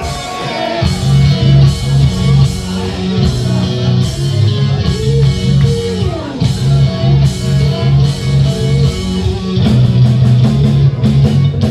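Live band playing an instrumental passage: electric guitar, bass guitar and drum kit with a steady, repeating bass line and a guitar melody over it, no singing.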